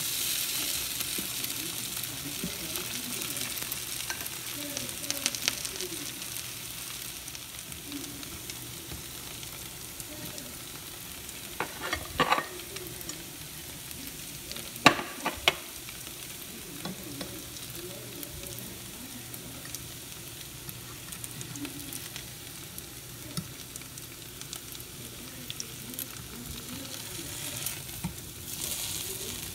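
Patties of grated potato shallow-frying in oil in a nonstick pan: a steady sizzle, with a wooden spatula scraping and turning them. A few sharp knocks come about twelve and fifteen seconds in.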